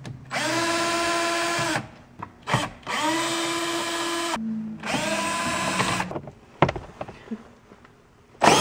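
DeWalt 12V MAX cordless drill-driver backing screws out of plastic dash trim: three short, steady runs of the motor, each winding up and down, with another run starting near the end.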